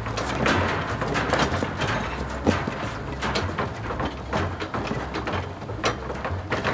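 A loaded wheeled cabinet rattling and clattering as it is pushed over bumpy dirt ground, with many irregular knocks and clicks.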